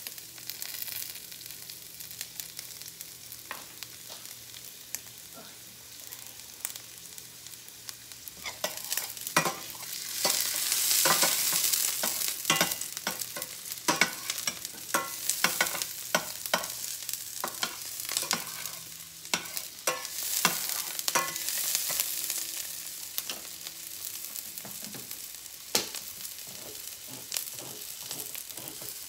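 Chopped onion and garlic sautéing in hot oil in a stainless steel pan: a steady sizzle that swells about ten seconds in, with frequent clicks and scrapes of metal utensils stirring against the pan.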